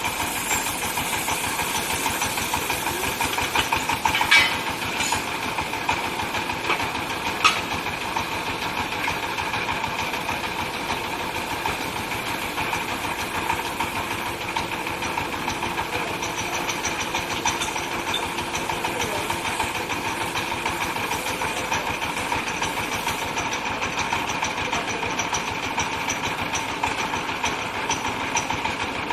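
Compressed-air well-drilling rig running: a steady, dense mechanical din with a fast rattling texture, and two sharp clicks about four and seven and a half seconds in.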